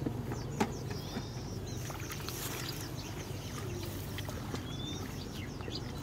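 Small birds chirping repeatedly over a steady low rumble, with two sharp clicks in the first second.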